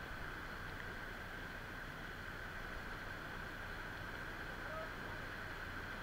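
Fast-flowing stream rushing over rocks: a steady rush of water.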